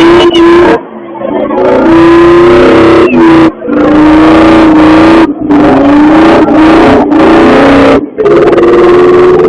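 Car engine revving hard during a burnout, held at high revs in long throttle bursts, with short drops in between. The recording is very loud, close to clipping.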